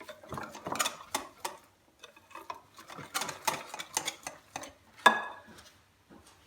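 A utensil stirring thick cake batter in a mixing bowl, clicking and scraping against the bowl in a quick, uneven rhythm, with a louder knock against the bowl about five seconds in.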